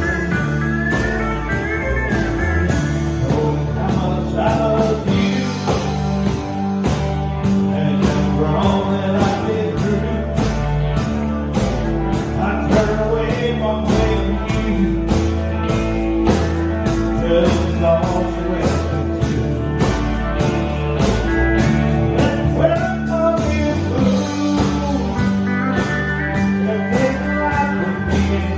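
Country band playing: a guitar lead over a walking bass line and a steady drum beat.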